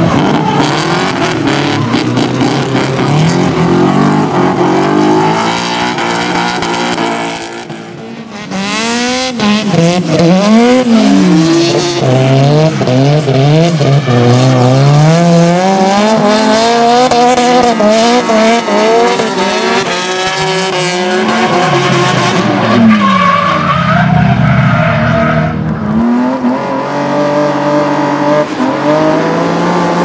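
Drift cars sliding on tarmac: engines revving up and down in long swooping sweeps of pitch, with tyres squealing. The sound dips briefly about eight seconds in, then comes back louder.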